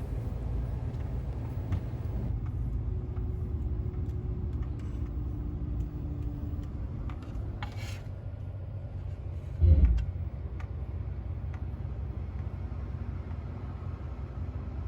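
Steady low road and engine rumble inside a moving car's cabin, with a single loud thump near the middle.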